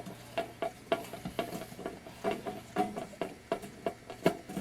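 Irregular light clicks and taps, some with a short ring, as the fan cover is worked off the head of a halogen countertop oven and its parts are handled.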